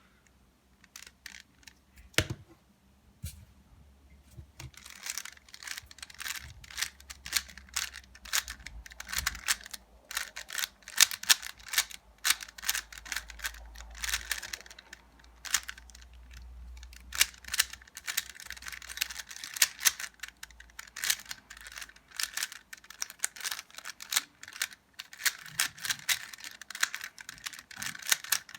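Plastic 3x3 Rubik's cube being turned fast in a timed solve: rapid, irregular clicking and clacking of the layers. There is a single knock about two seconds in, a few sparse clicks, and then nearly continuous turning from about five seconds in.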